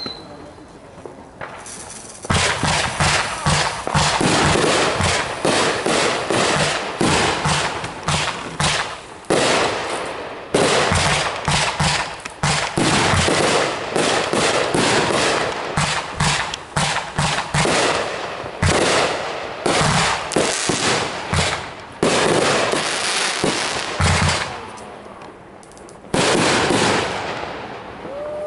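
Backyard consumer fireworks going off in a rapid, dense barrage of cracks and bangs, many reports a second. There is a brief lull about a second in and another shortly before the end, when the firing picks up again.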